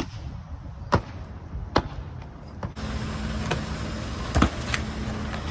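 Sharp thuds of feet landing and pushing off during parkour moves, about a second apart. About halfway the background turns to a steadier hiss with a low hum, and two more thuds come close together near the end.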